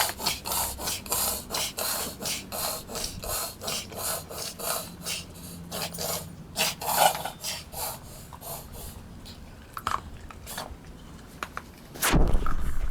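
Dog panting rapidly with a rasping, snorting breath, about three breaths a second, fading after about nine seconds; the owner wonders whether it is kennel cough. A loud low rumble comes in near the end.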